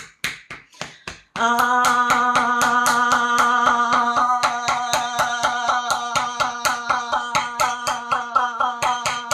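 Fists pounding rapidly on the chest, about five blows a second, while a person holds a long, loud 'ahhh' on one steady pitch, the voice jolted by each blow. A few blows come first without the voice, which starts a little over a second in. This is chest pounding done to loosen phlegm from the throat and lungs.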